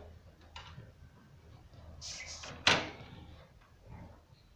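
Bird cage being opened and a dish of soft food set inside: a few short scrapes, then one sharp clack about two and a half seconds in.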